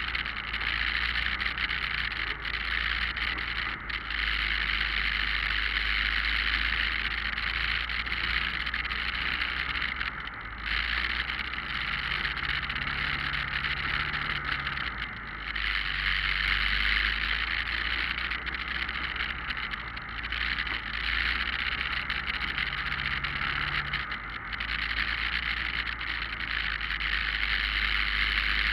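Motorcycle riding along at steady speed in a group ride: a continuous rush of wind and road noise on the camera's microphone, with the engine's low hum coming through faintly at times.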